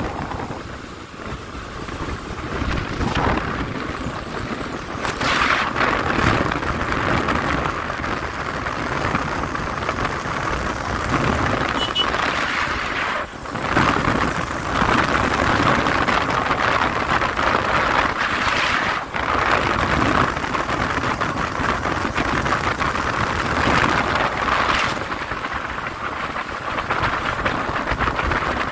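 Wind buffeting the microphone over the motor and road noise of a small motorcycle riding at speed, a steady rushing noise that briefly drops and changes a couple of times.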